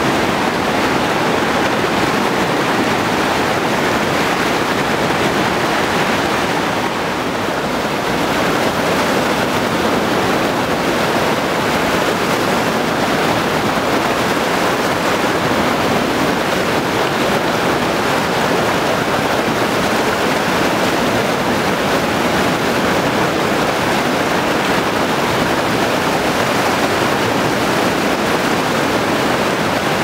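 Rushing water of the White Nile, a steady loud rush of noise with a brief slight dip about seven seconds in.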